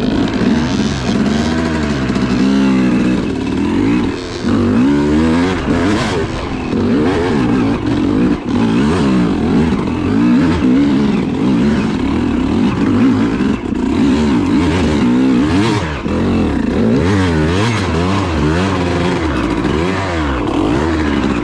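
Yamaha YZ250 two-stroke dirt bike engine revving up and down over and over under load on a steep, rutted trail climb, the throttle opened and closed every second or so.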